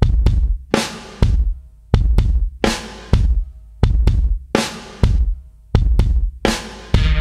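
Background music: a drum-kit beat of deep bass-drum and snare hits, about two a second, with faint held tones between them. A fuller arrangement with a steady bass note comes in right at the end.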